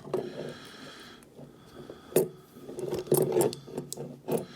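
Small metallic clicks and scrapes of lock picking tools working in the lock of a Peerless Model 300 handcuff, with a few sharper clicks about two seconds in, a cluster a second later and another near the end.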